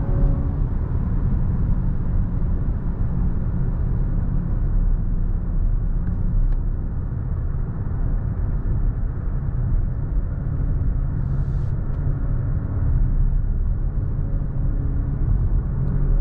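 Steady low rumble of tyres and road heard inside the cabin of a 2023 BMW i7 xDrive60 electric sedan while driving, with no engine note.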